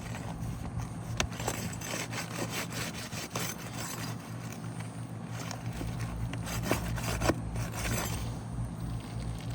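Irregular scraping, rubbing and clicking as a tool works under asphalt shingles to free a wind-damaged shingle from its seal and nails, over a steady low hum.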